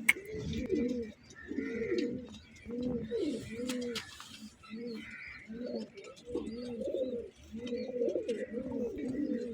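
Pigeons cooing: repeated low, warbling coo phrases separated by short pauses, typical of the courtship coo.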